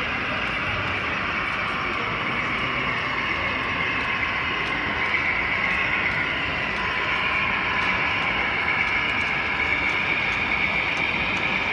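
HO-scale model train running along the layout, a steady whirr of motor and wheels on rail that swells a few seconds in as the train passes.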